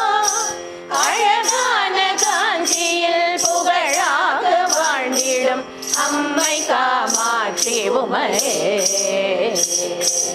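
A group of women singing a Tamil devotional verse together in long, drawn-out sung lines. A metal jingle keeps an even beat about twice a second, over a steady held tone.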